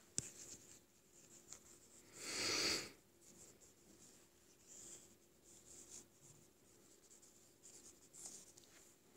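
Stylus rubbing and tapping faintly on a tablet screen while handwriting is erased, with one louder, longer rub about two seconds in.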